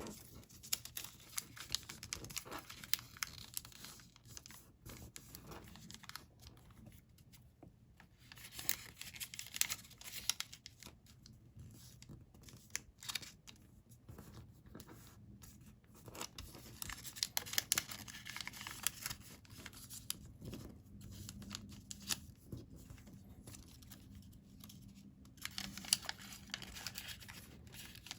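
Sheets of colored origami paper being folded and creased by hand, rustling and crackling in irregular bursts with short pauses between folds.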